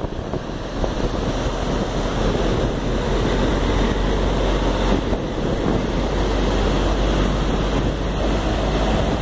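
Water jetting from a dam's outlet valve and crashing onto the riverbed below: a loud, steady rush.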